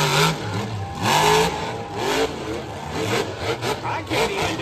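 Monster truck engine revving hard in repeated surges as it tears around, loudest at the start and again about a second in.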